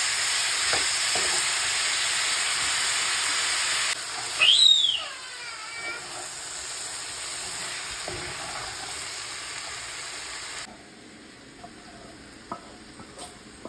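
Onion, capsicum and paneer sizzling as they are stir-fried in a pan, with a spatula stirring them. About four seconds in there is a short high squeak that rises and falls, and the sizzling is quieter after it. A few light knocks come near the end, as a second pan is tipped over the first.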